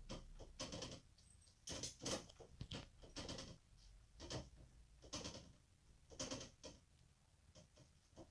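Small puppy whimpering faintly in short whines about a second apart, frustrated at a dog flap it cannot get through.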